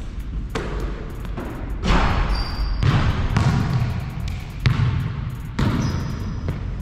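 Basketball bouncing on a hard court floor: a string of irregularly spaced thuds, with two brief high squeaks.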